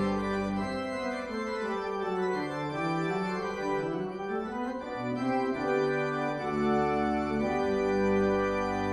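Church organ playing a hymn interlude between verses, as a series of sustained, slowly changing chords.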